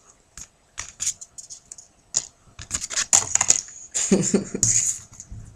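Yu-Gi-Oh trading cards and foil booster-pack wrappers being handled. A run of sharp, irregular clicks and crinkles comes thicker about three seconds in.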